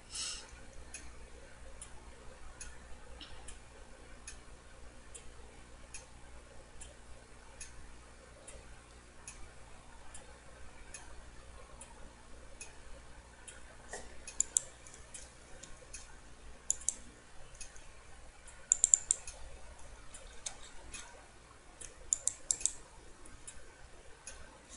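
Light clicking at a computer: faint ticks over a low hum, with a few louder short clusters of mouse clicks past the middle.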